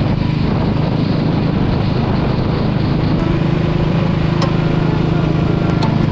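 Steady engine and road noise of a moving vehicle: an even low hum with no change in pitch, with a couple of faint clicks in the second half.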